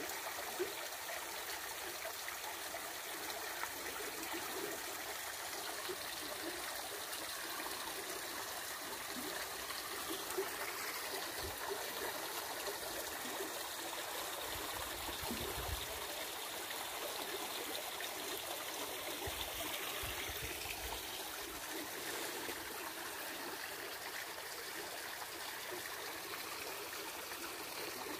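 Fast-flowing river water rushing steadily over choppy rapids.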